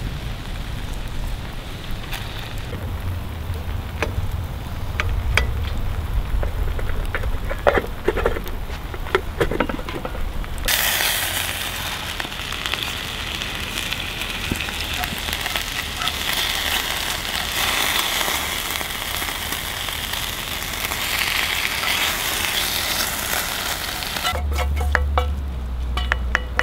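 Pike frying in oil in a pan over an open fire: a loud, steady sizzle starts suddenly about ten seconds in and runs until near the end. Before it, wind on the microphone with a few scattered crackles and clicks.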